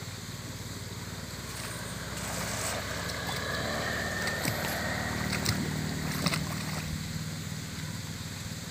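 A motor drones steadily, swelling somewhat in the middle, with a few small splashes and drips of water from a wet cast net being gathered up.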